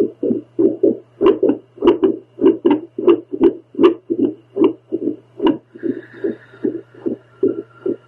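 A woman's heartbeat picked up through a home doppler: fast, whooshing pulses in an irregular rhythm, over a low steady hum.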